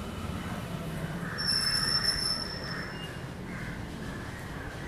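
A steady high-pitched squeal held for about a second and a half, a little over a second in, over a constant low background hum.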